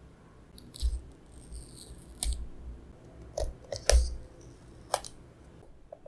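Handling and unsealing of a cardboard iPhone SE box: several sharp clicks and taps of fingers on the card, short rustles, and the paper pull-tab seal strips being torn off.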